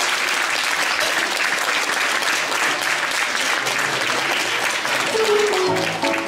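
Audience applauding, with the first pitched notes of music starting under the applause near the end.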